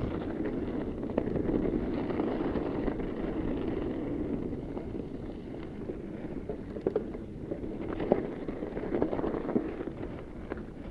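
A fat bike rolling over a dirt trail: a steady rumble of tyres and wind noise on the microphone, with scattered clicks and knocks as the bike rattles over bumps.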